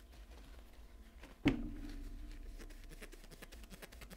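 Faint rubbing and small clicks of a bare steel knife blade being handled and wiped with a microfiber cloth, with one sharp knock about a second and a half in that rings briefly.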